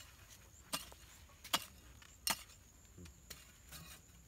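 A hoe chopping into dry soil: four sharp strikes about three-quarters of a second apart, then a few softer knocks and scrapes of earth near the end.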